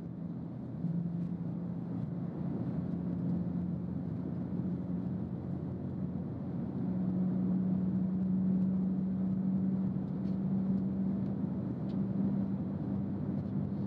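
Chuo Shinkansen maglev train running levitated at high speed, heard from the passenger cabin: a steady rushing drone with a low resonant hum. The hum steps up in pitch and gets louder about a second in and again about seven seconds in as the train accelerates toward 250 km/h.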